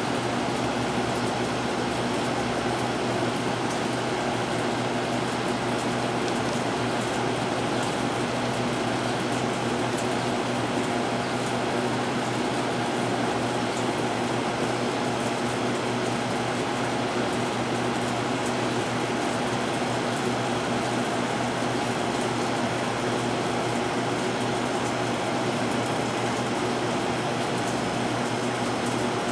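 A steady mechanical hum with a low, even drone and a constant hiss, unchanging throughout.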